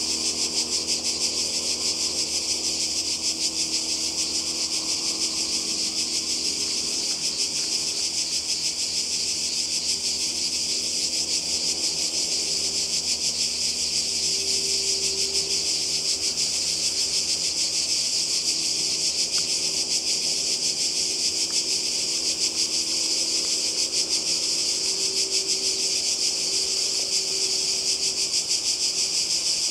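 Chorus of cicadas shrilling without a break, a dense high buzz with a fast pulse. Under it, a faint low drone of distant motorboat engines that swells around the middle and again near the end.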